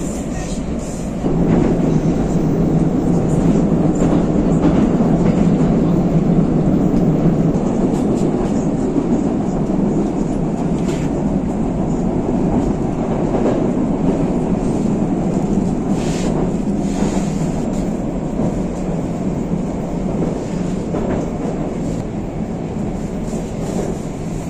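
Moskva 2020 metro train running through the tunnel, heard from inside the passenger car: a steady, loud running noise of wheels and traction gear, mostly low in pitch, with a few sharp rail clicks. It gets louder about a second in and eases off near the end as the train slows for the next station.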